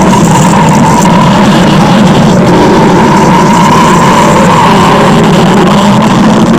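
Stomach-growl sound effect, loud and continuous, holding a steady pitch with a rough, buzzing texture.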